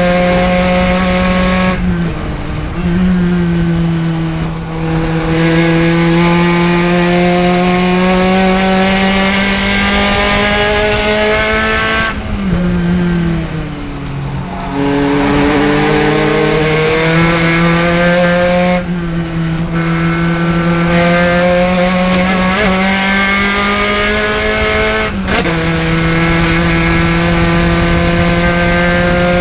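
Spec Racer Ford Gen3's four-cylinder engine at racing revs, its note held steady along the straights. About four times the throttle is lifted: the pitch falls, longest and lowest around the middle, then climbs again as the H-pattern gearbox is shifted.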